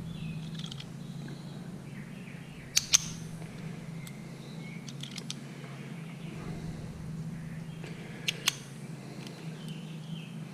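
Sharp clicks from a gear shift pen's shift lever being moved through its gear positions: a pair of clicks, a short cluster, then another pair. Faint bird chirps and a steady low hum sit underneath.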